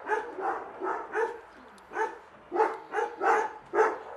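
Dog barking, about nine barks in irregular bursts with a short pause about a third of the way in.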